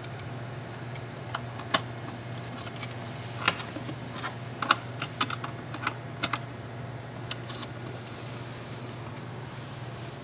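Scattered sharp clicks and taps of electrode cable plugs being pushed into connector sockets on a Karl Fischer titrator, bunched in the middle, over a steady low hum.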